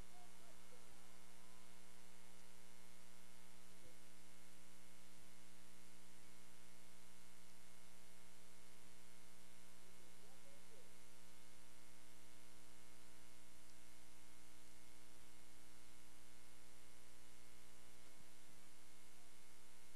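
Steady electrical mains hum, a buzz with many even overtones, with no game sound standing out. A deeper hum comes in about four seconds in and drops out near the end. A few faint wavering tones appear near the start and about ten seconds in.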